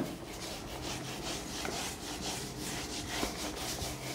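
Whiteboard being wiped clean with an eraser, in quick back-and-forth rubbing strokes about four a second, after a single knock as the wiping begins.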